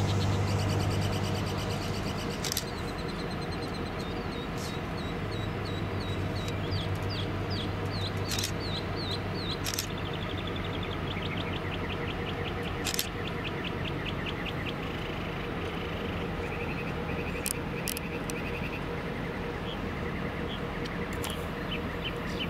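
Norfolk Southern diesel locomotive idling with a low, steady hum, while a bird sings long runs of quick repeated chirps over it.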